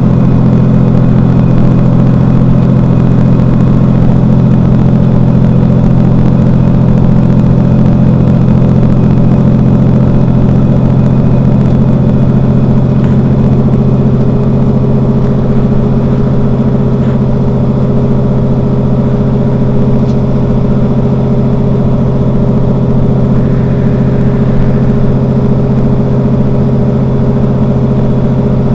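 Engine of a Mercedes-Benz Citaro facelift city bus idling steadily with a low, even hum. It eases slightly quieter about halfway through.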